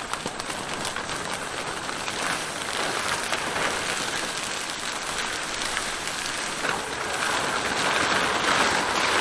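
Plastic sheeting and a tarp crinkling and rustling as they are pulled off a stack of siding boards, a dense, steady crackle.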